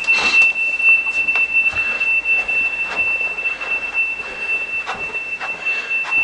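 Smoke alarm sounding one continuous high-pitched tone, set off by smoke in the house, with faint irregular clicks over it.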